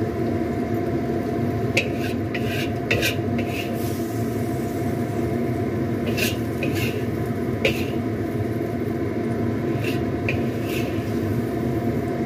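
Water spinach and quail eggs sizzling in a hot wok with a steady hiss, broken by a scattering of sharp clinks of a utensil against the wok and bowl.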